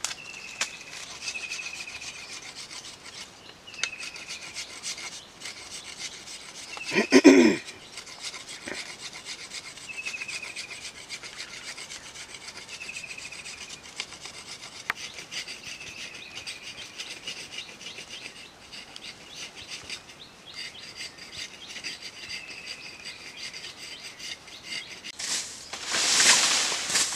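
A knife shaving a wooden stick into curled shavings: repeated scraping, rubbing strokes. A bird's short falling call repeats every couple of seconds in the background, a brief louder sound comes about seven seconds in, and near the end there is a rustle of dry leaves underfoot.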